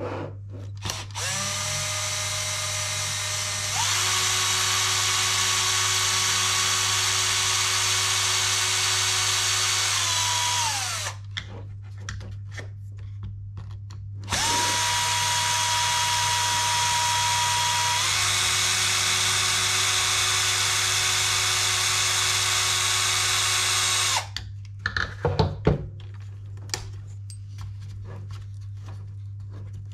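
Cordless electric screwdriver running in two long spells of about ten seconds each, each stepping up in speed partway through and winding down as it stops, backing screws out during disassembly of an RC buggy. Light clicks of small parts and tool handling come between the runs and after them.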